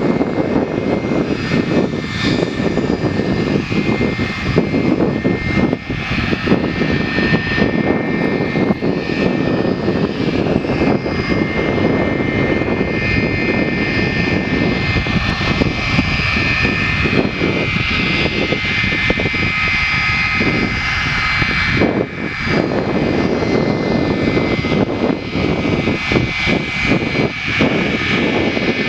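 Twin rear-mounted turbofan engines of a Swiss air-ambulance Bombardier jet at takeoff power during its takeoff roll. The engine noise is steady, with a high whine held on top.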